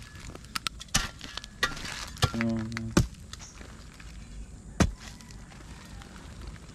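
Scattered sharp knocks and clinks of rubble, wood and bottles being handled while digging at a snake burrow, the loudest about three seconds in and again near five seconds. A brief steady pitched sound comes about two and a half seconds in.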